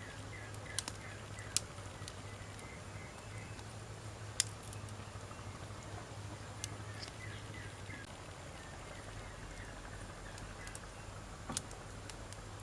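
Wood campfire crackling: a steady low rush of burning with a handful of sharp pops from the wood, the loudest about four seconds in.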